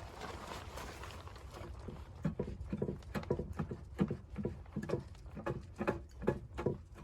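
Footsteps crunching through snow at a steady walking pace, about two to three steps a second, starting about two seconds in after a soft rustling.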